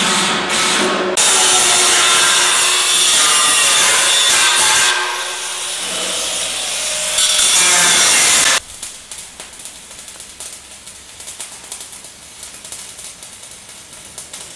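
A power drill running in short bursts into a metal base plate. Then an angle grinder grinds the metal with a loud, steady whine. About eight and a half seconds in it cuts off suddenly, and the quieter crackle of arc welding follows.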